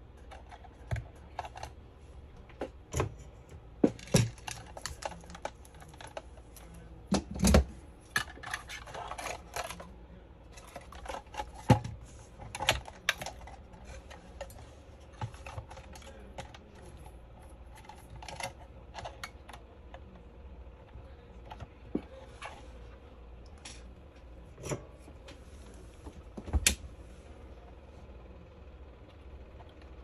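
Irregular small clicks, taps and knocks from hands handling a 5G router's plastic housing and its wiring on a desk during a soldering repair, a few sharper knocks standing out among lighter clicking.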